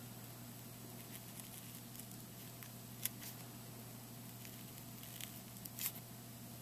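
Faint scratching of a ballpoint pen pressed hard and drawn slowly over paper onto tin foil, embossing lines into the foil: a few short scratchy ticks, a sharp one about halfway and a louder cluster near the end, over a steady low hum.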